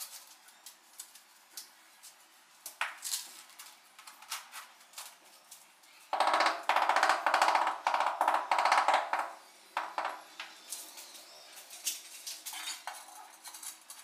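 Light taps, clicks and scrapes of ceramic wall tiles and a trowel as tiles are set and pressed into mortar. About six seconds in, a loud burst of music-like pitched sound cuts in for about three and a half seconds, then stops.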